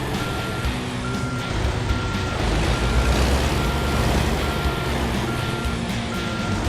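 Heavy-equipment backup alarm beeping steadily, one tone about every 0.85 s, over the loud running of a heavy diesel engine.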